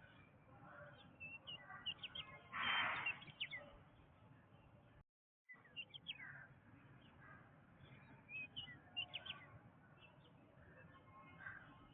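Birds chirping and calling: many short high chirps and whistles over a faint steady background, with one louder, harsher call about three seconds in. The sound cuts out completely for about half a second near the middle.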